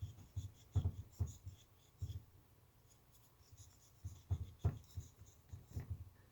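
Cotton swab scrubbing and handling at a VCR's mode-switch contacts: a scattered run of short scratches and soft knocks, in clusters near the start, past the middle and near the end.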